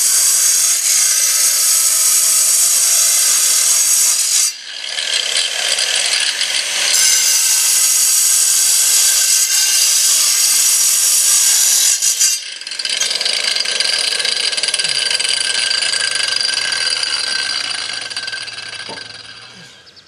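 Handheld angle grinder cutting through a flagstone, a loud high-pitched whine as the blade grinds into the stone. It cuts in two long passes with a brief break about four seconds in, then runs on more quietly and fades out near the end.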